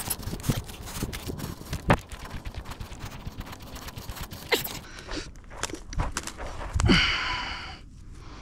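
Footsteps crunching and scraping over dry grass and loose dirt, irregular steps throughout. A louder rushing, rustling burst comes about seven seconds in and fades over a second.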